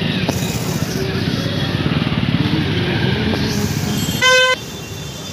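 Dense street traffic with motorcycle and scooter engines running close by, and one short, loud vehicle horn honk about four seconds in.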